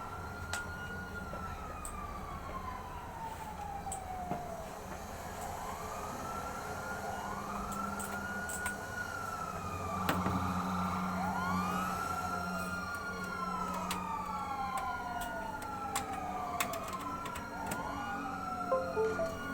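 Siren-like wailing tones that rise quickly and fall slowly, repeating and overlapping so that several seem to sound at once in the second half, with a few scattered sharp clicks.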